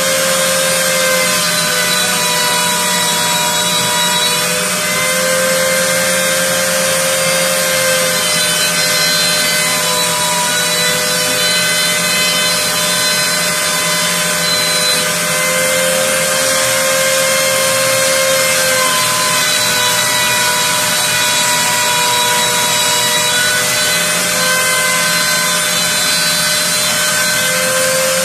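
Handheld rotary tool spinning as the spindle of a small CNC mill, its bit engraving into a wooden board: a steady high whine over a hiss of cutting, the pitch shifting slightly up and down as the cut load changes.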